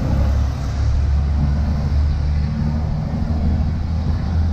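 Wind buffeting the microphone of a bike-mounted camera while cycling along a paved street, a steady low rumble mixed with tyre and road noise.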